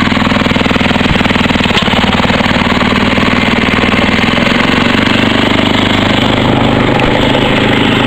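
Engine of an old Ariens walk-behind snowblower running steadily on a cold test start after its recoil starter was repaired.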